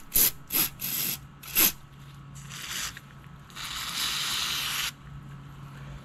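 Aerosol carburetor cleaner sprayed into a small-engine carburetor: several short squirts, then one steady spray lasting over a second about halfway through.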